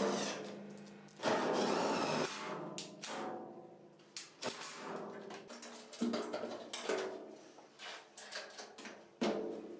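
Cordless impact driver driving screws into a steel bed panel in short bursts. The longest burst comes about a second in.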